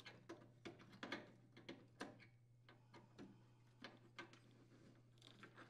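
Faint, irregular small clicks and taps as plastic water lines are pushed into the push-in ports of a refrigerator water inlet valve and the valve is handled.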